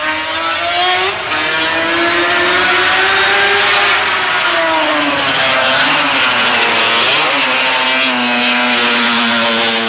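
Racing sidecar outfit's engine running at high revs, its pitch climbing over the first few seconds, dropping about five seconds in, then holding steady as the outfit comes by.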